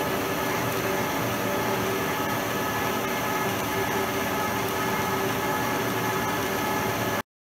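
Schaublin 52 milling machine cutting steel with a large end mill under power feed: a steady machining noise with a running whine of several steady tones. It cuts off suddenly near the end.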